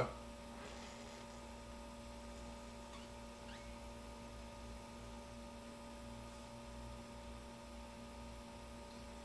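Steady low electrical hum, like mains hum, over quiet room tone; no other distinct sound stands out.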